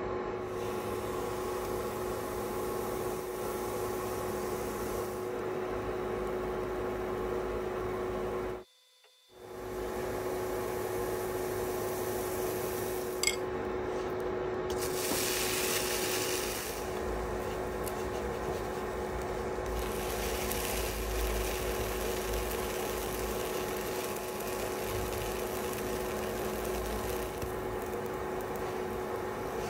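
Steady motor hum with a constant low tone over a rough hiss, cutting out for about half a second nine seconds in, with a brighter hiss for a couple of seconds midway.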